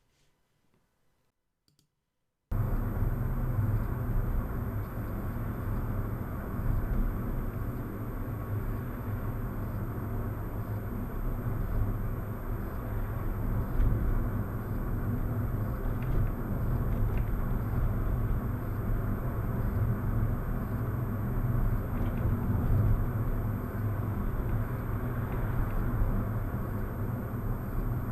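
Car interior driving noise as recorded by the FalconZero F170HD+ dash cam's microphone and played back through speakers: a steady low rumble of engine and tyres that starts suddenly after about two and a half seconds of near silence, with a few faint clicks.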